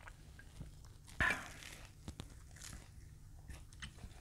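Close-up eating sounds: one loud crunchy bite into crisp fried food about a second in, then quiet chewing and a few small clicks.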